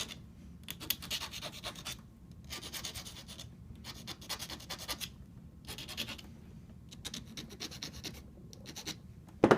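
Hand file rasping on the center conductor of a 400 coax cable, filing its end to a point, in several runs of quick back-and-forth strokes separated by brief pauses.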